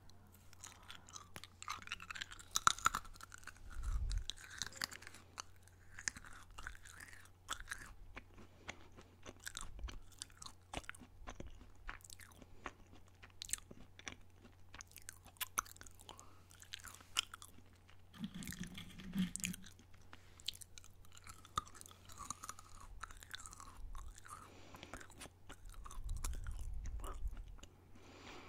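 A person chewing crunchy snack food very close to a microphone: a run of many small crunches and mouth clicks as it is chewed.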